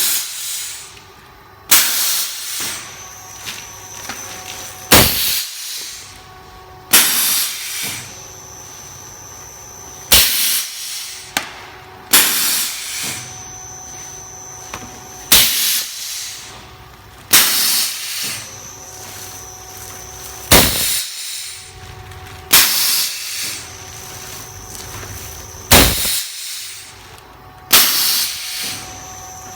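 Rubber-cutting guillotine machine running in automatic cycles, about one every five seconds: each cycle has a sharp bang of the knife stroke and, about two seconds later, a loud hiss of air. A steady machine whine runs underneath.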